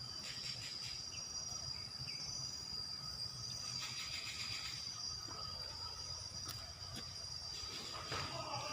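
Insects droning in one steady high-pitched tone, with a few faint clicks here and there.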